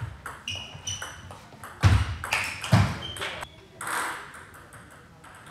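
Table tennis ball clicking off rackets and the table in a rally, a string of sharp taps, with two heavier thuds around two and three seconds in.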